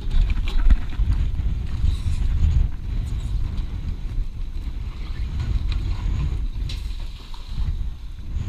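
Wind buffeting a body-worn microphone as a low, irregular rumble, with a few light knocks about half a second in and again near the end.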